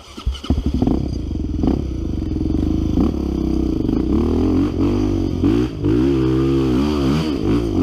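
Single-cylinder trail motorcycle engine revving hard close by. It starts suddenly with some clatter, then labours under load. From about four seconds in, the revs rise and fall again and again, as the throttle is worked on a steep hill climb.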